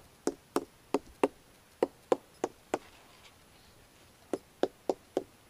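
Small wooden-handled sounding hammer striking the bark of a beech trunk: an arborist's sounding test, listening for decay from Fomes fomentarius (tinder fungus). Sharp knocks about three a second, in two runs with a pause of about a second and a half between them.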